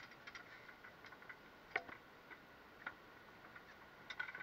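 Faint, scattered ticks and light taps, with a sharper tap about two seconds in and another about three seconds in.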